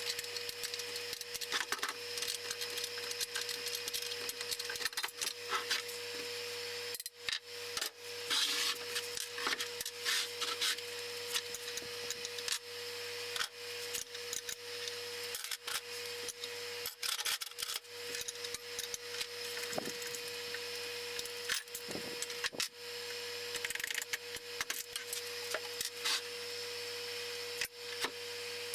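Hand tools clicking, scraping and rubbing against the parts of a three-wheeled band saw as it is taken apart, with many small knocks, over a steady hum.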